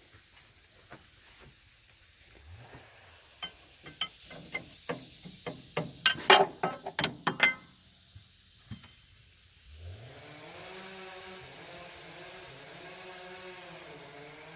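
Hand ratchet wrench clicking in irregular spurts on a stuck nut, loudest a few seconds in. About ten seconds in, an engine starts and settles into a steady idle.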